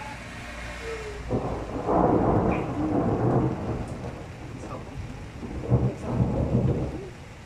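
Thunder rumbling in two rolls, the first building about a second in and the second peaking near the end, over steady rain.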